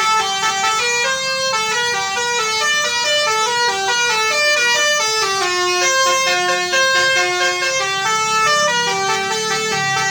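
Indonesian telolet bus horn playing a continuous melody: several horn tones sound together and step from note to note in quick succession.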